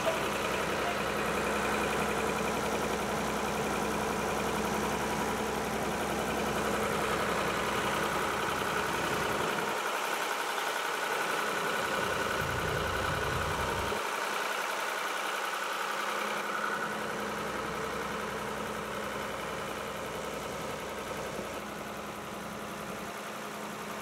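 Old Ford farm tractor's diesel engine idling steadily.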